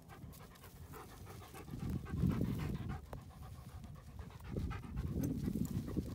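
Large dog panting in quick repeated breaths, louder for a stretch about two seconds in and again near the end.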